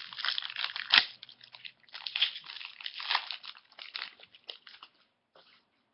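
Wrapper of a trading-card pack crinkling and crackling as it is torn open and the cards are handled, with a sharp click about a second in; the crinkling dies away near the end.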